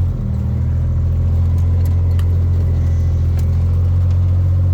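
Side-by-side utility vehicle's engine running with a steady low drone while driving, easing briefly just after the start.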